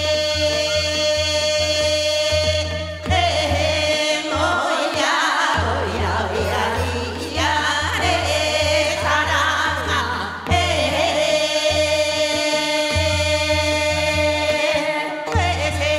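A woman singing Seodo-sori, Korean northwestern folk song, in long held, wavering notes over a low rhythmic accompaniment.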